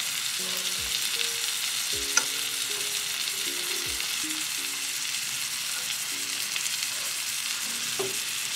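Steak frying in melted butter in a skillet: a steady sizzle, with one light click about two seconds in.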